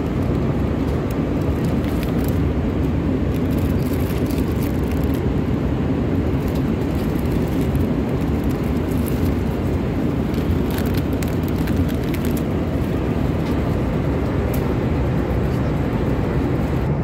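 Steady cabin noise inside an Embraer 190 airliner: a continuous low rumble of jet engines and rushing air, with faint scattered clicks.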